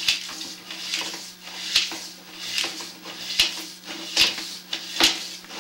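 Sewer inspection camera being pushed along a drain line: a short scraping knock about every 0.8 s over a steady low hum.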